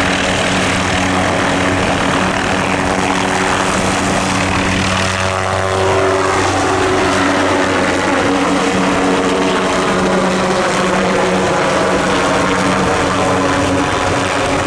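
MD530F helicopter's turboshaft engine and rotors running steadily, with a steady rotor tone. Some of the tones sweep in pitch about halfway through.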